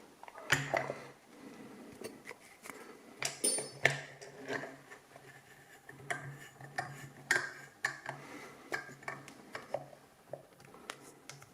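ABUS Extreme 83WB/53 padlock and metal lock-picking tools being handled: irregular light metallic clicks and clinks.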